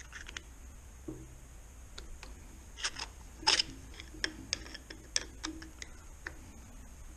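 Irregular metallic clicks and clinks of hand tools working on metal gearbox parts, growing more frequent after about three seconds, with one louder, longer scrape about three and a half seconds in.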